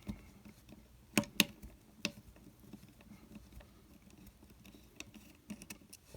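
Small clicks and taps as the plastic parts of an opened walkie-talkie are handled. Two sharp clicks come just after a second in, another at about two seconds, and lighter scattered ticks follow near the end.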